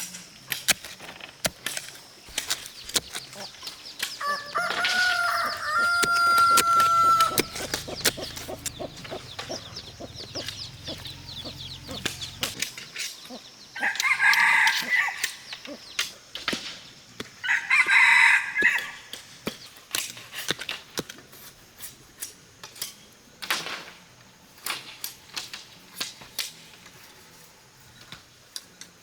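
A rooster crows once, starting about four seconds in, the call held for about three seconds. Two shorter squawking calls follow at about fourteen and eighteen seconds, over scattered sharp clicks and taps.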